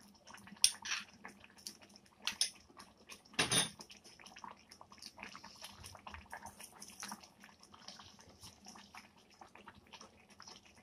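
Faint kitchen handling sounds as cardamom powder is tipped from a small bowl and sprinkled by hand into a cooking pot: scattered light clicks and taps, with one louder short sound about three and a half seconds in.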